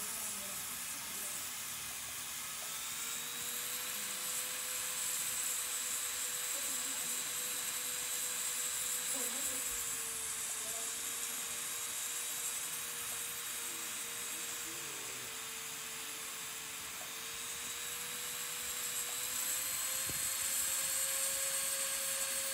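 Electric nail drill (e-file) running with a steady whine as its metal bit files gel polish off acrylic nails. The pitch wavers slightly, dipping in the middle and rising again near the end.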